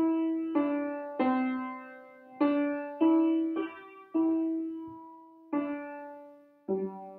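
Upright piano played slowly: chords and notes struck about nine times, each left to ring and die away before the next.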